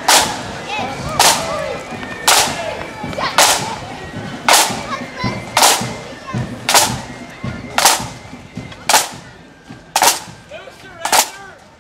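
A marching band's drums beat time: a single sharp crack about once a second, eleven in a row, at an even marching pace. Crowd chatter runs underneath.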